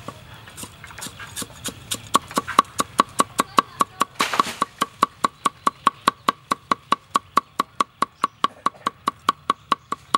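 Steel cleaver chopping fresh herbs on a thick round wooden chopping board: quick, even knocks about four a second, each with a short woody ring, with a brief scrape about four seconds in.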